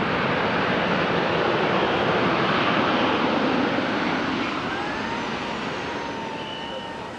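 Jet engines of a Southwest Boeing 737 rolling along the runway after landing, a steady broad rush of jet noise that fades from about four seconds in.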